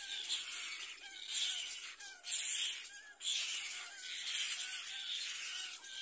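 Cormorant chicks begging for food with harsh, hissing calls, coming in bursts about a second long, one after another.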